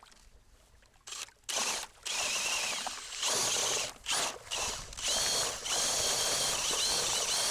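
Cordless drill driving a homemade boat paddle, starting about a second in with a few short runs and stops, then running nearly steadily with a high whine that wavers slightly in pitch.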